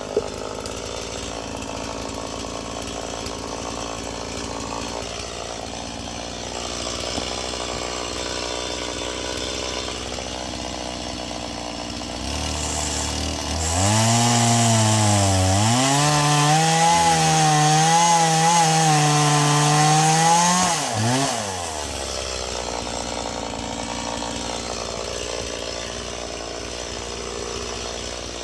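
Stihl chainsaw idling, then opened up about halfway through and run at full throttle for about seven seconds as it cuts into a dead ash log, its pitch dipping and recovering under the load, before dropping back to idle.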